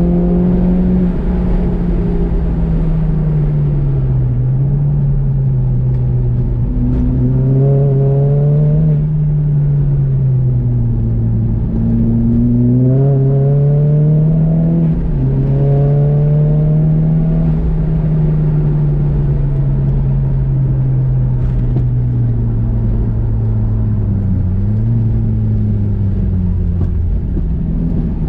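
Nissan Juke's four-cylinder engine driven hard on track. Its pitch repeatedly climbs under acceleration, then drops back sharply or winds down as the car slows, over and over.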